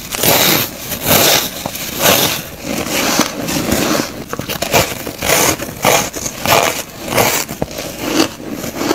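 Close-up crunching of packed soft shaved ice being bitten and chewed, a quick run of crisp crunches, two or three a second. Midway there is the gritty scrape of a hand scooping more loose ice from the tub.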